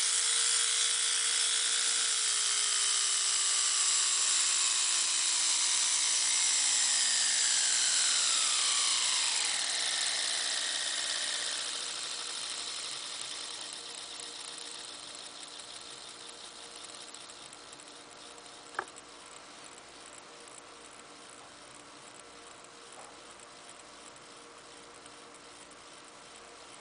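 Small can motor and gearbox of an HO brass model locomotive running with a steady whine that slides down in pitch over about eight seconds as the motor slows. After that only a faint steady hum remains, with one sharp click about two thirds of the way in.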